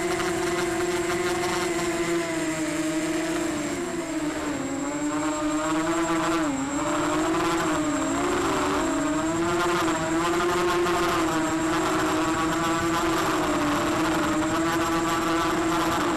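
Emax Nighthawk 280 Pro racing quadcopter's brushless motors and propellers whining at a steady pitch in flight. The pitch dips and wavers with throttle changes about four and six and a half seconds in.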